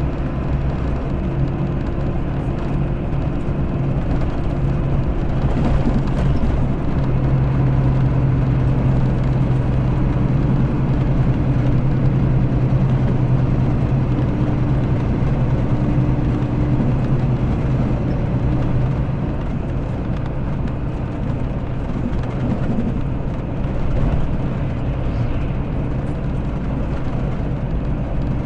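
Mercedes-Benz O-500RS coach's diesel engine heard from on board, running steadily while under way; its low note eases off about two-thirds of the way through.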